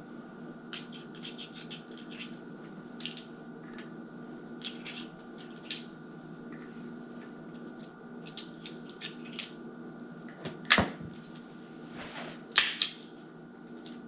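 Small metallic clicks and rattles of a J-frame revolver and .38 Special cartridges being handled during a speed-strip reload, in scattered clusters. Near the end come a few louder sharp clacks.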